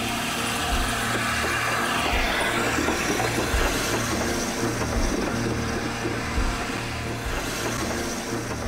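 A1 Peppercorn class steam locomotive running past close by at speed: a steady rush of wheels and motion on the rails, with a low thump recurring about once a second, easing slightly near the end.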